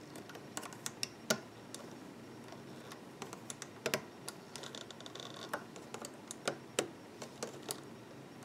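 Irregular light clicks and taps as a metal hook and rubber bands knock against the clear plastic pegs of a rubber-band loom while bands are put back onto the pegs.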